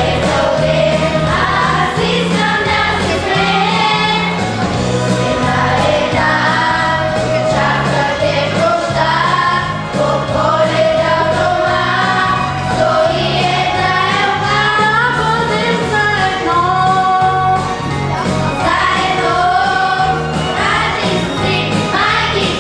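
Children's choir of girls singing a Christmas song into microphones over an instrumental accompaniment with a steady bass line.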